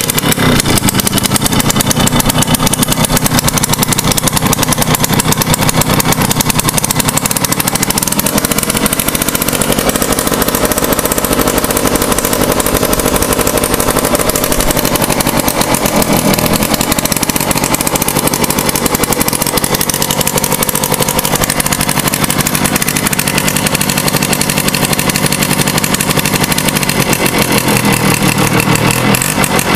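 Yamaha Tri-Zinger's small two-stroke engine running steadily on full choke just after a cold start.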